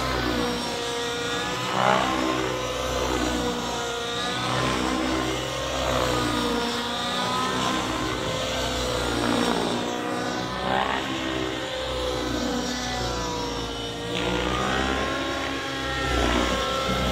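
Nitro-powered radio-controlled helicopter in flight: engine and rotor whine rising and falling in pitch again and again as it manoeuvres and passes.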